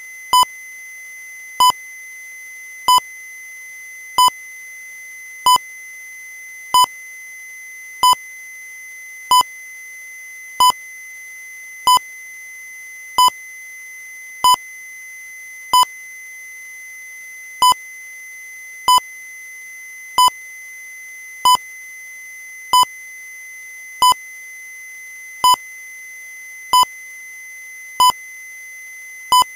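Short electronic beeps, one about every 1.3 seconds, over a faint steady high tone; one beep is skipped about halfway through.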